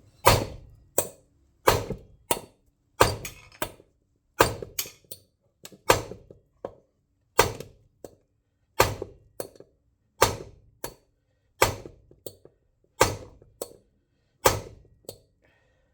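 Big hammer striking a stuck part on a seized Tecumseh lawnmower engine, trying to knock it free. About twenty sharp blows come one every 0.7 seconds or so, some in quick pairs, each with a short ring.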